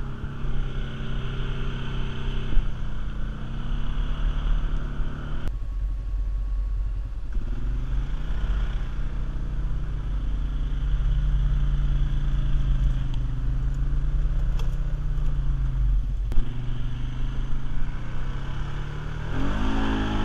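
Polaris Sportsman ATV engine running as the machine is ridden, heard from the seat, with a heavy low rumble. The sound changes abruptly a few times, and near the end the engine revs up.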